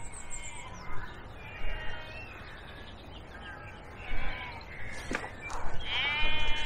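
Birds calling: several short harsh calls, the loudest near the end, with a faint high chirp at the start. A single sharp click about five seconds in.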